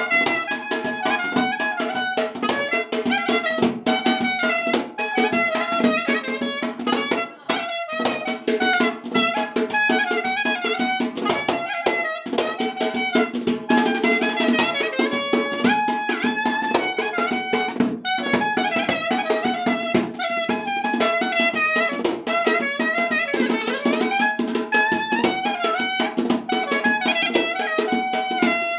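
Live Dagestani wedding band music: a fast, ornamented lead melody over quick, steady drumming, with a brief break a little before eight seconds in.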